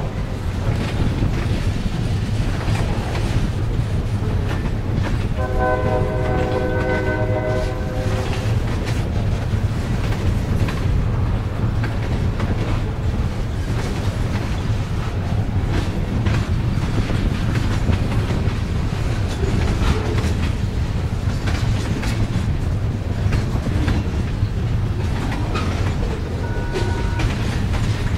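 Freight train of boxcars rolling past, a steady rumble with wheels clicking over rail joints. About five seconds in, the train's locomotive horn sounds one long chord blast lasting about three seconds.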